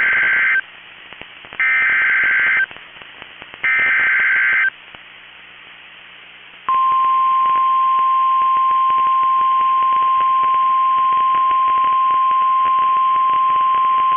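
NOAA Weather Radio emergency alert tones: SAME header data bursts, each a buzzy digital tone about a second long, repeated about a second apart, the first already under way. After a short pause the steady 1050 Hz warning alarm tone starts about seven seconds in and holds at one pitch, heralding a new severe thunderstorm warning.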